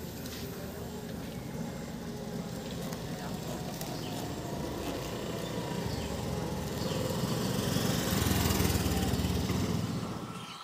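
Road traffic with a motor scooter's small engine approaching and passing close, its sound building to the loudest point about eight or nine seconds in, then dropping away near the end.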